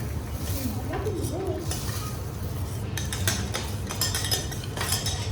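Metal utensils clinking and scraping against a teppanyaki griddle and dishes, with a steady low hum underneath. The clicks come thick and fast in the second half.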